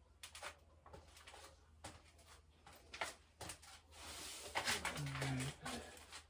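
Handling of a saw blade in its plastic blister pack: scattered clicks and taps, then a louder stretch of crinkling and rustling about four seconds in.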